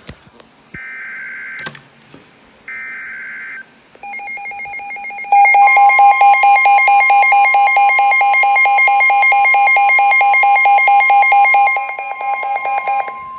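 Emergency Alert System alert tones for a flood warning: two short bursts of digital header data, then from about four seconds in a loud, rapidly pulsing electronic alarm tone, joined by a steady higher tone a second or so later.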